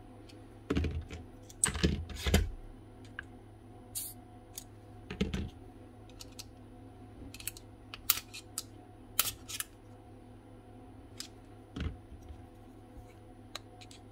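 Irregular small clicks and clacks of metal and plastic parts being handled as the firing pin is pulled out of a Milwaukee M18 crown stapler's gas-spring drive cylinder by hand, over a faint steady hum.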